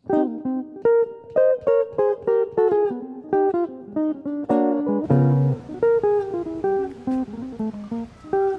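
Background music: a jazz guitar playing a plucked, chord-based introduction, with a bass line coming in about halfway through.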